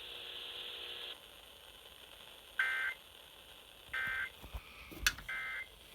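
Emergency Alert System end-of-message data bursts over FM radio: three short, identical buzzy warbles, evenly spaced about a second and a half apart, marking the end of the flash flood warning. Radio hiss fills the first second, and a sharp click comes just before the last burst.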